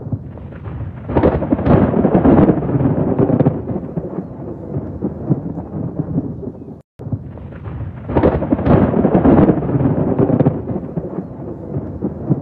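Thunder rolling over steady heavy rain: two long rumbles, one about a second in and another about eight seconds in, each lasting two to three seconds. A split-second gap of silence cuts the sound about seven seconds in.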